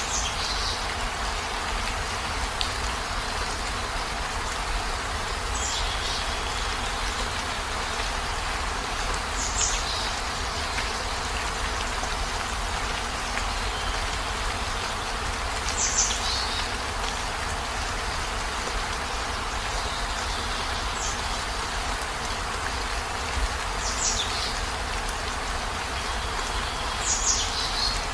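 Steady heavy rain, an even hiss with no let-up. Short high-pitched sounds stand out from it about every four seconds, seven in all.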